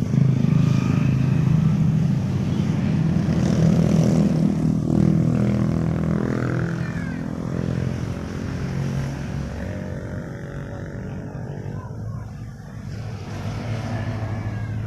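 A motor engine running nearby, its pitch shifting in the middle, then slowly fading away.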